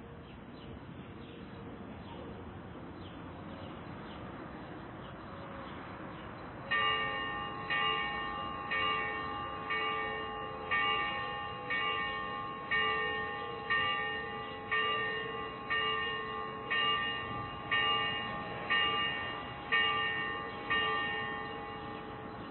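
A church bell tolling: from about seven seconds in it is struck about once a second, some fifteen times, each stroke ringing on into the next before the ring fades near the end. Before the first stroke there is only steady background noise.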